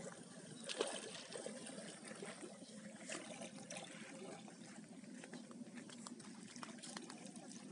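Faint splashing and trickling of shallow river water as a wet cast net is gathered in by hand, with a few small splashes, one about a second in and another about three seconds in.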